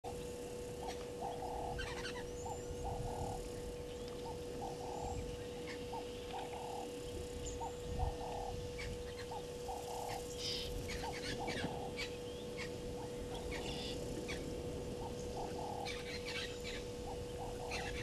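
Outdoor bush ambience of wild birds calling: many short, high chirps and whistles, over a lower call repeated about once or twice a second and a constant steady hum.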